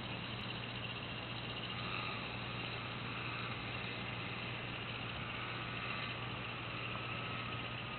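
Gyrocopter's engine and pusher propeller droning steadily as it flies at a distance, with an even hiss over it.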